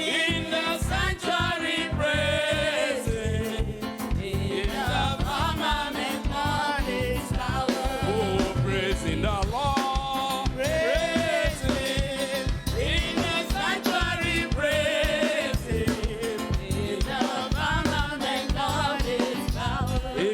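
Gospel praise music: several voices singing with vibrato over a band with a steady drum beat.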